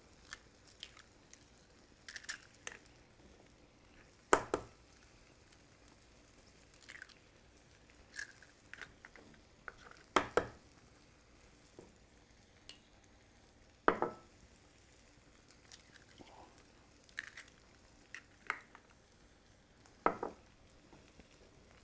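Eggs being cracked one at a time against the rim of a small glass bowl: four sharp taps spaced several seconds apart, with small clicks of shell and glass between them.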